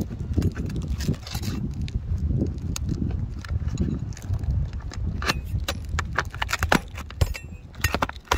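A flat bar and fingers prying under an asphalt shingle and the rubber pipe boot flange, breaking the seal strip to get at a roofing nail: scraping with sharp clicks and knocks, coming thickest in the second half, over a low rumble.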